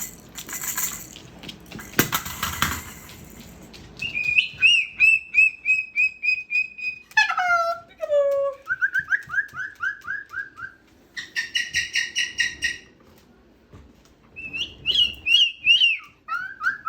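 Moluccan cockatoo making rapid runs of short, whistle-like chirps, several notes a second, shifting in pitch between runs, with some notes sliding down. A rustling clatter comes before it.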